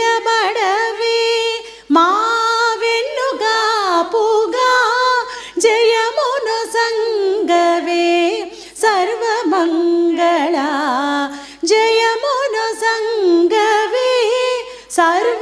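Group of women singing a Telugu devotional song together in long, drawn-out melodic phrases, breathing every two to three seconds.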